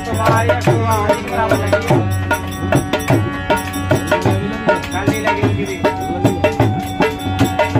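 Harmonium playing a folk tune in steady held notes, with a dholak, a hand-played barrel drum, beating a regular rhythm under it.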